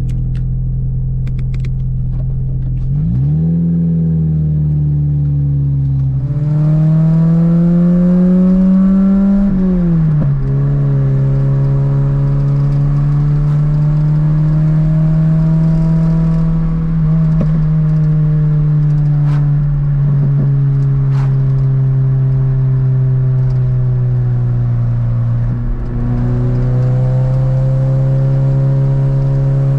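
Toyota MR2 engine under way, running up in pitch as it accelerates, with a sharp drop at a gear change. It then holds a steady cruising note and climbs again near the end.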